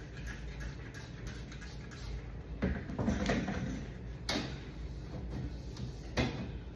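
Cleaning inside a refrigerator: three short noisy bursts, under two seconds apart, over a low steady hum.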